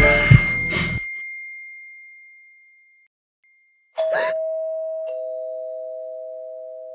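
Music ends on a high ringing note that fades out. After a silence, a ding-dong doorbell chime sounds: a higher note, then a lower note about a second later, both ringing on and slowly fading.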